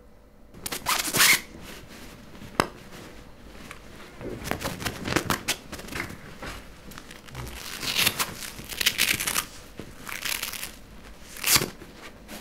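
Clip-on lapel microphones being handled and pulled off clothing: irregular scratchy rustling and crackling, with a few sharper snaps where a mic is knocked.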